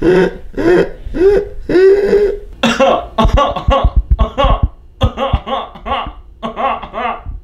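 Men laughing in repeated bursts. After about two and a half seconds a second man takes over with quicker, choppier laughter, and low thumps hit the microphone in the middle.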